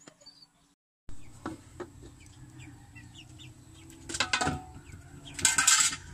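Chickens clucking, with two loud calls about four and five and a half seconds in, over a steady low rumble from a pot of broth steaming on a wood fire.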